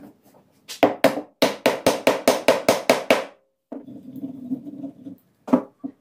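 Wooden mallet knocking rustic branch legs into the holes of a log-slice stool seat: about a dozen quick, sharp blows, four to five a second, then a short steady hum and one more knock near the end.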